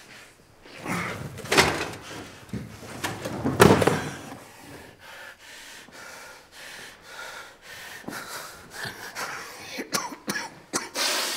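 A man coughing harshly with wheezing breaths: two loud coughing fits about two seconds apart, then quieter breathing.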